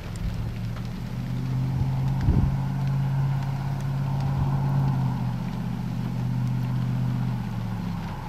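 A vehicle engine drones steadily at an even pitch, then fades away near the end, over a steady hiss of rain.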